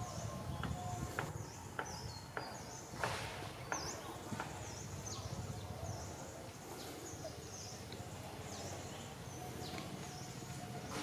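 Outdoor ambience: many short, high chirping calls repeat throughout over a low rumble, with a few faint ticks or taps in the first half.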